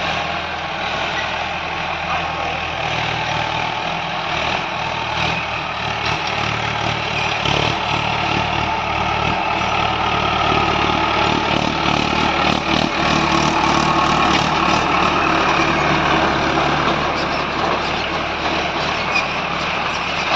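Farm tractor's diesel engine running steadily under load as it pulls a tine cultivator, growing louder about halfway through as the tractor comes close, then easing off.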